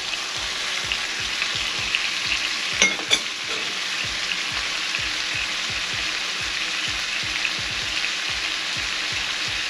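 Stuffing mixture of chicken liver, giblets and herbs sizzling steadily in hot oil in a pan, with a utensil repeatedly stirring and scraping through it. A brief metallic clink about three seconds in.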